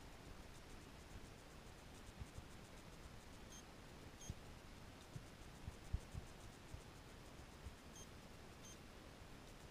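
Electronic beeping: two short high beeps a little under a second apart, then another pair about four seconds later, over a near-silent background with scattered soft low knocks, the loudest about six seconds in.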